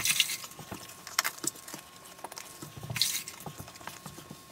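Wet grout sponge cleaning freshly grouted glass tile: two short watery swishes about three seconds apart, with scattered small clicks and knocks. A faint steady tone runs underneath.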